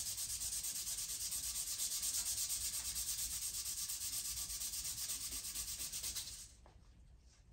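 Wooden axe handle being hand-sanded: quick, even back-and-forth rubbing strokes, several a second, with the final touches being put to the handle. The sanding stops about six seconds in.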